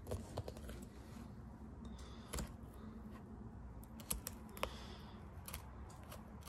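Knife cutting along a rabbit's backbone while deboning it: faint, irregular small clicks and snaps as the blade works against the bone.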